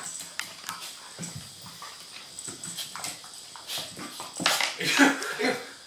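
A Maltese and a Golden Retriever playing on a hardwood floor: scattered clicks and scuffs of claws and paws, then a short spell of dog whimpering about four and a half seconds in.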